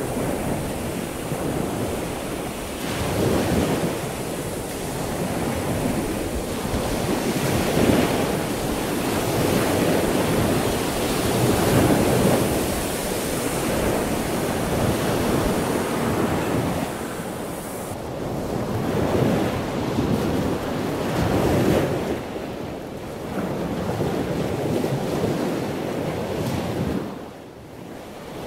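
Heavy storm surf breaking and churning, its rush swelling and easing every few seconds, with wind buffeting the microphone.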